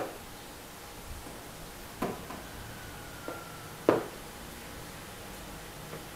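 African grey parrot knocking its beak against a clear plastic fruit container: two sharp taps about two seconds apart, with a softer tap between them.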